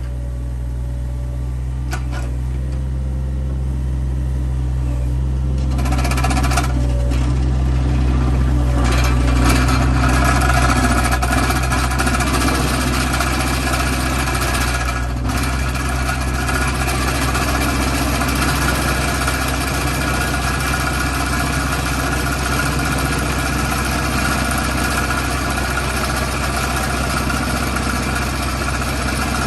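Excavator's diesel engine running under load while a hydraulic vibratory compaction bucket vibrates against embankment fill, a steady low hum under a rattling buzz that grows fuller about six seconds in.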